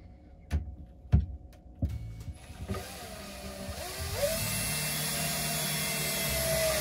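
Cordless drill-driver driving a screw into a chipboard cabinet panel: a few knocks as the bit is set, then the motor runs steadily for about four seconds, its whine rising in pitch about halfway through.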